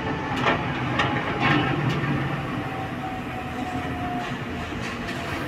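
Hydraulic truck tippler platform lowering back toward level: a steady mechanical rumble with several sharp metallic knocks in the first two seconds and a faint steady whine midway.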